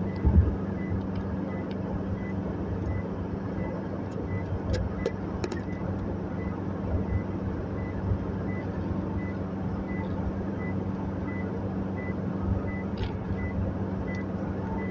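Toyota Hilux 2KD diesel engine running steadily with the air conditioning on, a constant low drone. A faint high pip repeats about every 0.7 seconds, and a few light clicks come around the middle and near the end.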